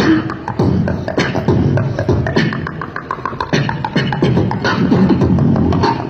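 Beatboxing through a handheld microphone and a portable amplified loudspeaker: a steady beat of vocal drum sounds, with a sharp hit a little more than once a second over a thick low-end pulse.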